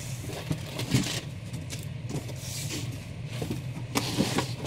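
Comics and packing material being handled and shifted inside a cardboard shipping box: rustling, with a few light knocks about a second in and again near the end, over a steady low hum.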